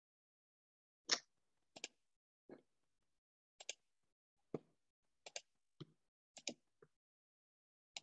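Scattered short clicks and taps, about a dozen, irregularly spaced and some in quick pairs, with dead silence between them.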